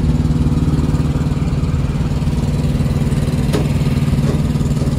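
Semi truck's diesel engine running steadily at idle, with an even, fast low pulsing and no change in pitch.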